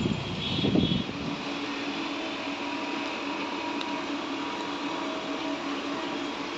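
The tail of a loud train rumble cuts off about a second in. It gives way to a steady mechanical whirring hum with a faint low tone, from the LHB train beside the camera.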